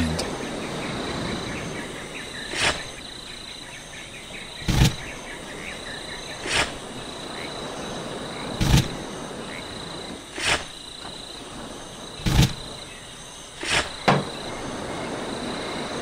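Digging in sand: a short, loud stroke about every two seconds, eight or so in all. Behind it, crickets chirr steadily at a high pitch.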